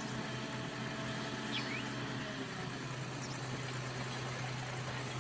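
Large mining haul dump trucks' diesel engines running with a steady low hum.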